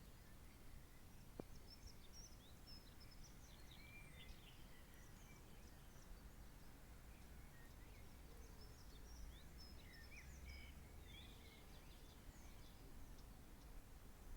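Faint songbirds chirping, many short high notes scattered throughout, over a low steady rumble of outdoor background noise.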